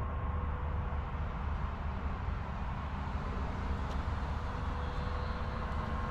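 Distant electric RC aerobatic airplane in flight, its motor and propeller giving a faint whine that fades in and out, over a steady low rumble.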